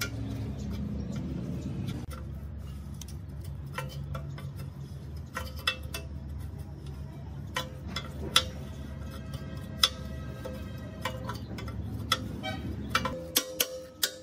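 A steady low mechanical hum with scattered metallic clicks and taps, some ringing briefly. Near the end the hum stops and an even ticking beat takes over.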